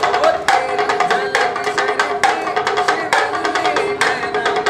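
Music with a steady beat of sharp drum strikes, about two a second, under a held, gliding melody.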